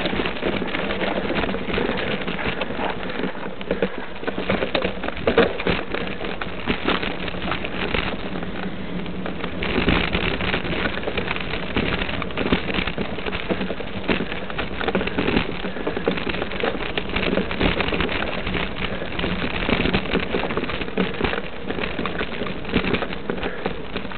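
Constant crackling, rattling noise of a mountain bike being ridden up a loose dirt and gravel trail: tyres crunching over stones and the bike shaking.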